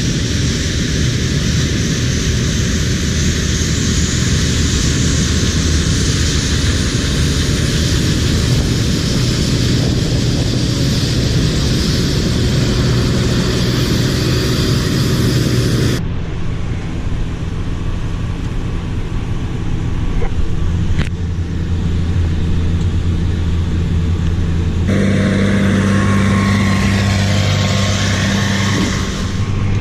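Heavy diesel harvest machinery running steadily under load, a deep engine hum with a broad machine rush above it. The sound changes abruptly in character twice, about halfway through and again near the end.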